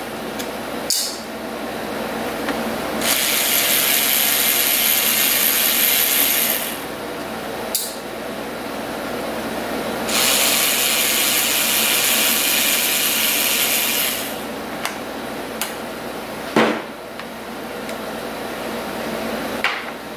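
Ratcheting screwdriver backing out the small screws of an air rifle's grip cover plate: two spells of fast, dry ratchet rasping of a few seconds each, with a few light clicks between them and later one sharp knock.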